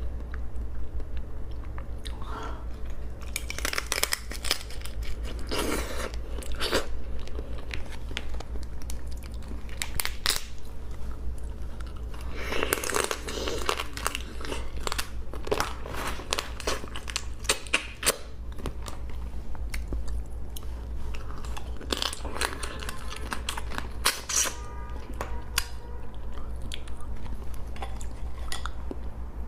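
Close-up eating sounds of raw crab: repeated crunching, biting and chewing as the shell and flesh are bitten into, in irregular bursts over a steady low hum.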